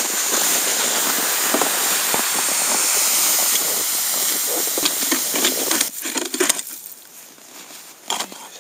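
Steady hiss with irregular crunching footsteps on snow for about six seconds, then a sudden drop to much quieter. Near the end a hand ice auger starts grinding and scraping into the lake ice.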